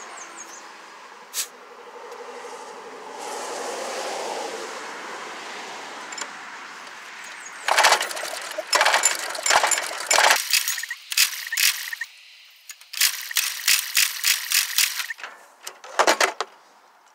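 Starter cranking a 6 hp Briggs & Stratton flathead single-cylinder engine over in several bursts, with a rapid chattering beat of about four strokes a second, for a compression test with a gauge in the spark plug hole. A soft hiss comes before the cranking, as the gauge's built-up pressure is let out.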